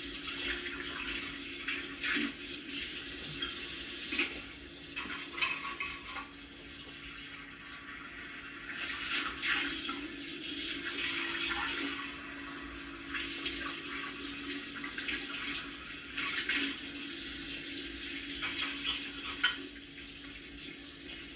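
Kitchen tap running into a sink during hand dishwashing, the water hiss swelling and easing as it splashes over the dishes, with a few short knocks.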